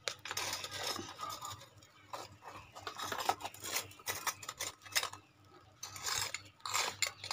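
Metal tongs clinking and scraping against a wire grill rack as a charcoal-grilled whole fish is lifted and handled: an irregular clatter of sharp metal clicks, easing off briefly a little past the middle.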